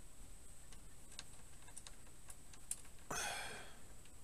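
Faint scattered clicks of a cable plug and leads being handled at the back of a PC case, then a short, louder scraping rustle about three seconds in.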